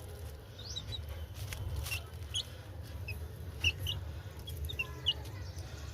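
Baby chicks peeping in short, high chirps while feeding, with a few faint knocks.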